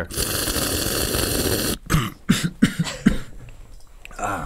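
A man making a wet slurping, sucking noise through his front teeth: a steady hiss for nearly two seconds, then a run of short, broken sucks and gulps that trail off.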